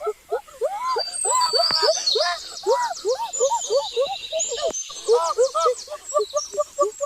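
Birds calling: a dense, fast run of short rising-and-falling calls, several a second, with thinner high chirps and trills over them for the first few seconds.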